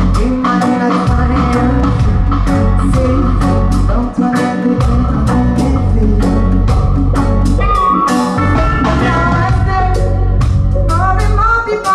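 Live reggae band playing: drums keep a steady beat under bass and electric guitar, with a woman singing the lead vocal into a microphone. The bass drops out briefly a few times.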